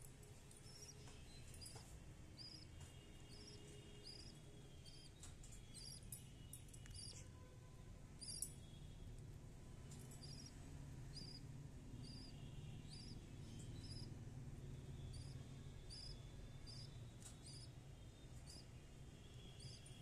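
Budgerigar chicks in the nest box peeping faintly: short, high peeps repeated evenly about twice a second, with brief pauses.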